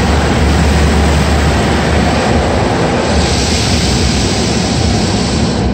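Automatic car wash working on the car, heard from inside the cabin: a loud, steady rushing of spray and machinery over a low rumble. The hiss grows brighter about three seconds in and drops away suddenly near the end.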